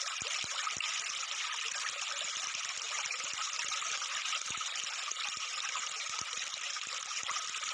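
Steady, even hiss like running water, with faint scattered clicks.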